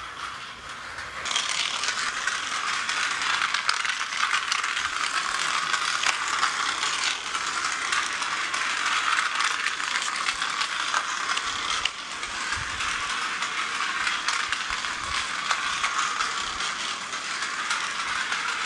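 Battery-powered toy metro train running around its plastic track, its small motor and plastic gears making a dense, rapid clatter that gets louder about a second in.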